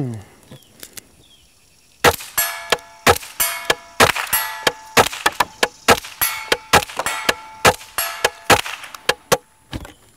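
A fast string of suppressed shots from a Henry AR-7 .22 LR semi-automatic survival rifle fitted with an integral suppressor, starting about two seconds in, several shots a second, each answered by the ring of steel targets being hit at 75 yards.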